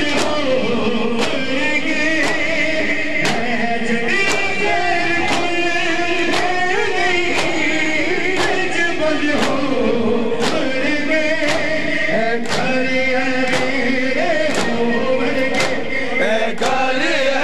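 Men's voices singing a Punjabi noha (mourning lament) together, with a crowd beating their chests in unison in matam, one sharp slap landing about every second in time with the chant.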